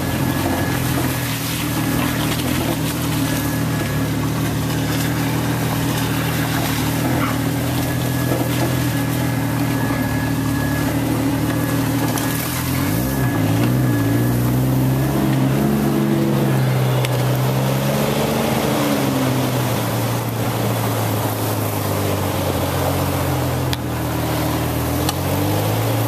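Jeep Wrangler engine running as it drives a sandy off-road trail, heard from inside the cab. Steady at first, then from about halfway through it revs up and down repeatedly as the Jeep climbs over sand mounds.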